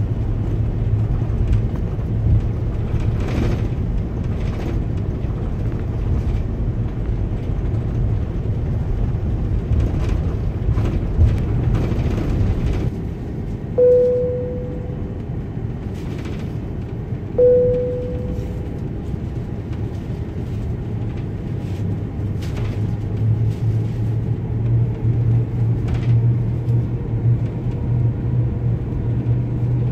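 Steady low cabin hum of an Airbus A330-300 taxiing, its Rolls-Royce Trent 700 engines at low power, with scattered soft knocks as the wheels roll over the taxiway. About halfway through, two single cabin chimes sound a few seconds apart, and the hum grows a little louder near the end as the aircraft reaches the runway.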